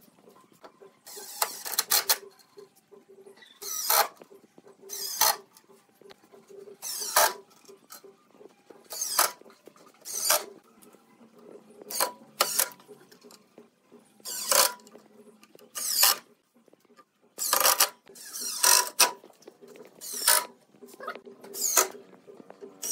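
Makita cordless impact driver driving screws into pine boards: about fourteen short bursts of fast hammering, each under a second, with a pause of one to two seconds between them.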